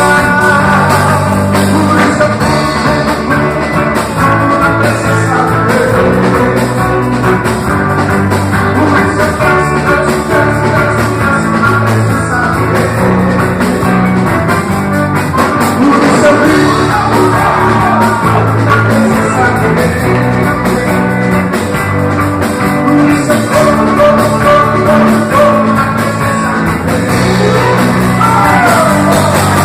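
Worship (louvor) music played on accordion: held melody notes and chords over steady, stepping bass notes.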